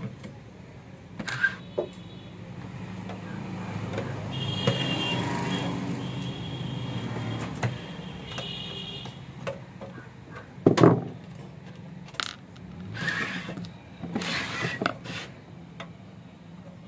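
A screwdriver working on the metal case of a car-style stereo amplifier, with scattered knocks and clunks as the unit is handled and turned around. The loudest clunk comes about eleven seconds in. A low hum swells a few seconds in and fades again by about eight seconds.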